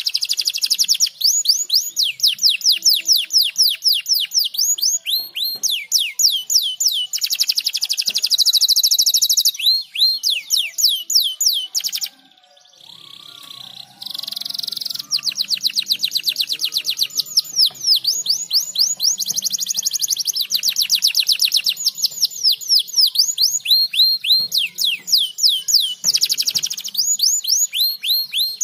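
Domestic canary singing a long song of rapid trills, each a string of quick pitch sweeps, with faster buzzing rolls in places. The song breaks off briefly about twelve seconds in, then carries on.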